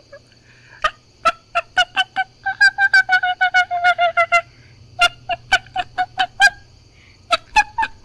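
A person doing a fox impression: short, high fox-like yips, some single and some in a quick chattering run of about six a second in the middle.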